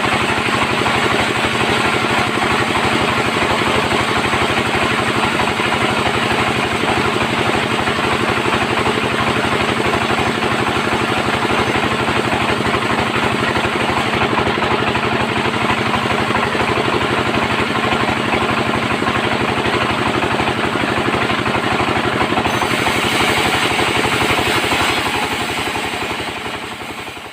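Bandsaw mill running steadily, its drive humming with a fast, even pulse. About twenty-two seconds in, a brighter hissing noise joins it, and the sound fades out near the end.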